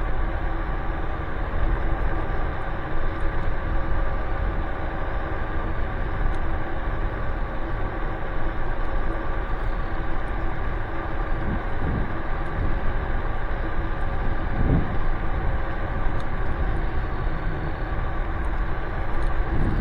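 Nanrobot Lightning 2.0 electric scooter riding along steadily: its dual hub motors give a constant whine over a steady rumble of wind and solid tyres on the pavement.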